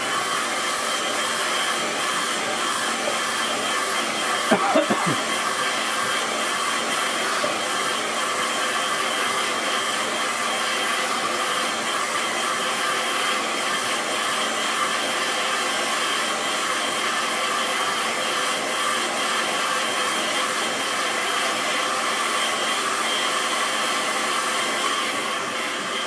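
Hand-held hair dryer blowing a steady rush of air over wet watercolour paint to dry it, cutting off near the end.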